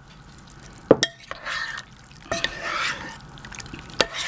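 A spoon clinking a few times against the crock pot, with wet plops and squelches as canned beef and its juice are spooned onto the stew.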